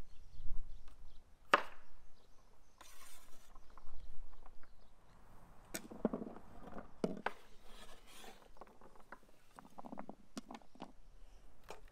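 Cleaver chopping carrots on a wooden cutting board: a few separate sharp knocks, then clusters of small knocks and clatters as the carrot pieces are scraped off the board with the blade into a wooden bowl.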